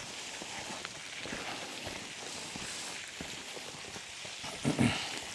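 Footsteps on loose stony ground, faint and irregular, over a steady outdoor hiss, with a short vocal sound near the end.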